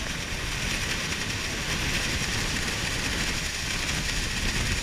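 Steady roar of wind and the falling water of Niagara Falls at the bow of a tour boat, with wind buffeting the microphone in a flickering low rumble.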